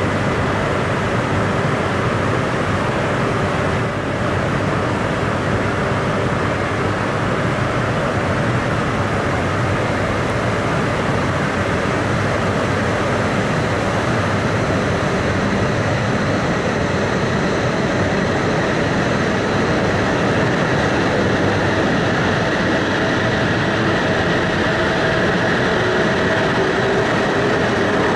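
JR East E956 ALFA-X Shinkansen test train pulling out of the station. The rolling stock gives a steady rumble, and a faint whine from the traction motors rises in pitch from about halfway as the train picks up speed.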